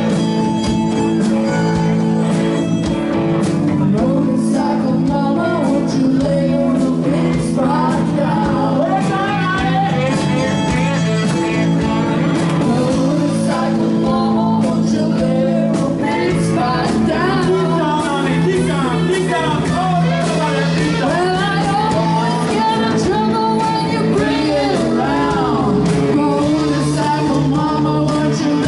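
Live rock band playing, with electric guitars, drums and violin under singing.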